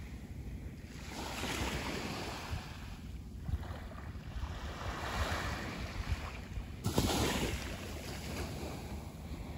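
Small waves washing onto a sandy beach, the wash swelling and ebbing every couple of seconds with a stronger surge about seven seconds in. Wind buffets the microphone.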